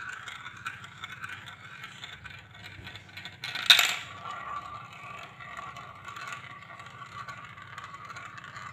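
A marble rolls round and round inside a plastic funnel bowl of a marble run with a steady whirring rumble. About three and a half seconds in, it drops out with one sharp plastic clack, then goes on whirring around the next plastic funnel.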